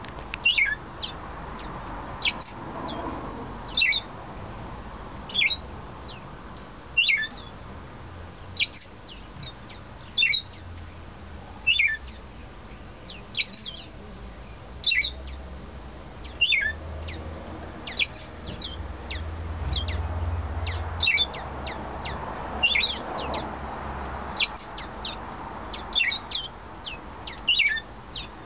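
Male splendid grass parakeet (scarlet-chested parrot) singing: short, high, thin notes that slide downward, given in small bursts every second or two.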